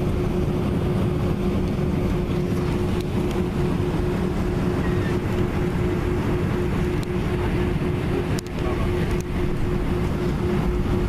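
Airbus A320 cabin noise during taxi: a steady low rumble from the engines at taxi power, with an even hum over it. A few faint clicks, and a brief dip in level about eight seconds in.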